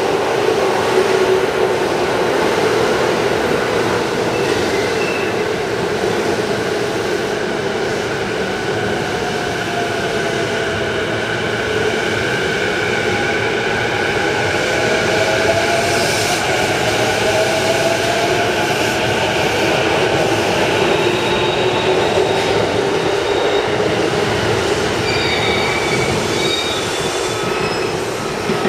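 E233-8000 series electric train pulling out and accelerating past, its electric drive giving a whine that rises in pitch about a third of the way in, over steady wheel-on-rail rumble. The noise fades near the end as the train clears.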